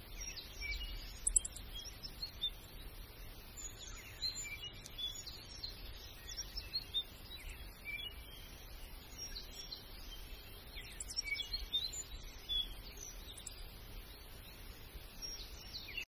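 Small birds chirping and twittering in many short, high calls scattered through the whole stretch, over a low background rumble.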